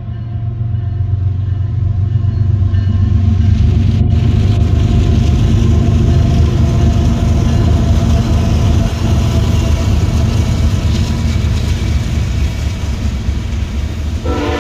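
Canadian Pacific freight train passing close by: the diesel locomotive's engine rumble swells over the first few seconds and stays loud, followed by the steady roll and rumble of tank car wheels on the rails.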